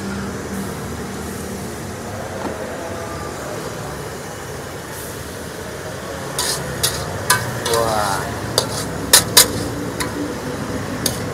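Metal ladle clanking and scraping against an aluminium wok while stirring noodle soup. The clanks come as a string of sharp strikes in the second half, the loudest pair about nine seconds in, over a steady low hum.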